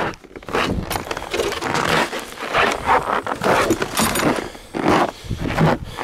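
Footsteps crunching in snow, about two steps a second, as someone walks down wooden deck stairs and out across the yard.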